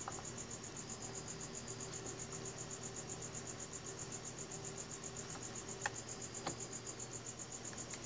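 Steady high-pitched chirping in rapid even pulses, like a cricket, over a faint low hum. Two light ticks come about six seconds in.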